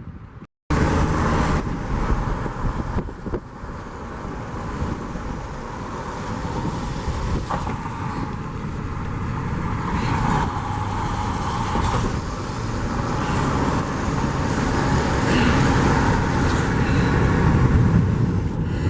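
A car driving, with steady engine and road noise that slowly grows louder. The audio drops out briefly just under a second in.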